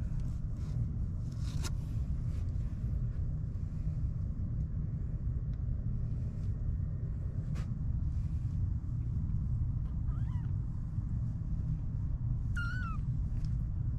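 A 25-day-old kitten mews twice, faintly about ten seconds in and more clearly near the end, over a steady low rumble.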